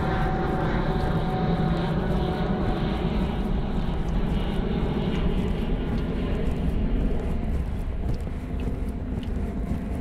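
Jet aircraft flying over: a broad, steady rumble with whining tones that fade as it passes, the sound dropping off about eight seconds in.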